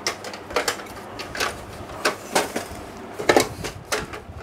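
Plastic outer cover of an HP LaserJet P1020 Plus printer knocking and clicking as it is handled and fitted onto the metal chassis: a string of separate knocks, the loudest a little past three seconds in.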